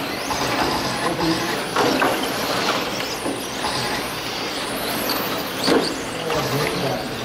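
Several radio-controlled touring cars racing around a carpet track, their running noise steady, with a few sharp knocks, the loudest about six seconds in.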